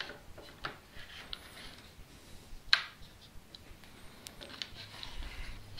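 Quiet clicks, taps and rubbing from handling an aluminium bar clamp with freshly glued wooden jaw pads, with one sharp click about three seconds in; near the end the clamp's screw handle is being worked to tighten it.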